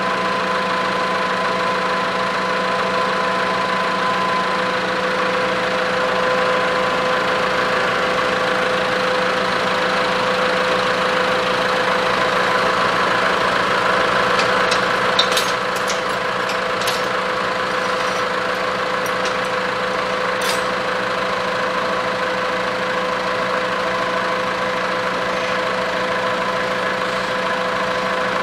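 A motor running with a steady, unchanging hum. A few light clicks come a little past halfway.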